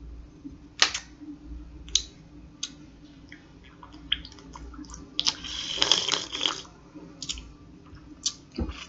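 Scattered sharp clicks and taps, about eight of them, with a short burst of rushing noise a little past the middle.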